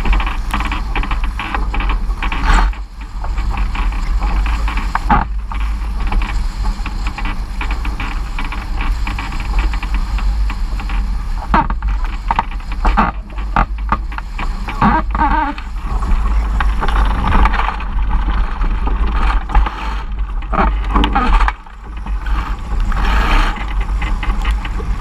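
Strong wind buffeting the microphone with a heavy low rumble, over water rushing and splashing against a sailing dinghy's hull as it sails in strong wind, in irregular gusts and slaps.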